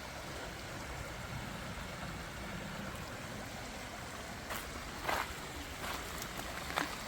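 Creek water running steadily over rocks, with a few sharp clicks and knocks in the second half.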